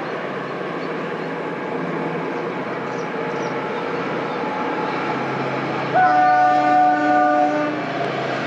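Locomotive-hauled passenger train running past with a steady rumble, its horn sounding one chord-like blast of about a second and a half near the end.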